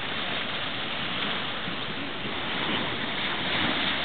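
Small waves breaking and washing up on a sandy beach: a steady rush of surf that swells a little near the end.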